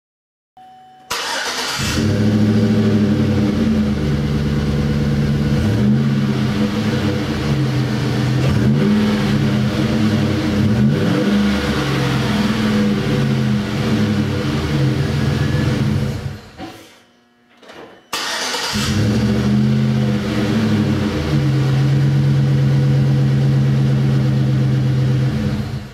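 GMC Sierra pickup's engine heard through a newly installed Flowmaster Force II cat-back exhaust, revved up and down several times. After a short break it runs at a steady speed.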